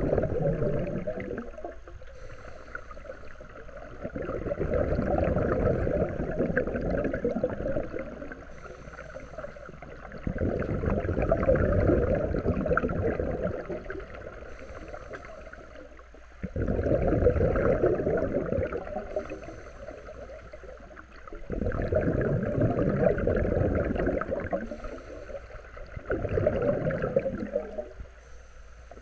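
Scuba breathing through a regulator underwater: a rush of exhaled bubbles every five seconds or so, with quieter inhalations between, about six breaths in all.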